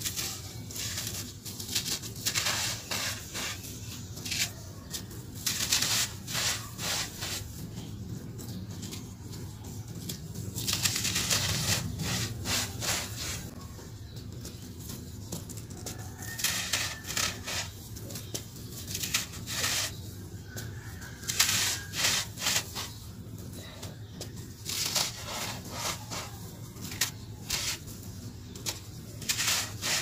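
Dry, gritty sand-cement chunks crushed and crumbled between the fingers: irregular crunching and crackling in clusters, with loose grit trickling and pouring from the hands.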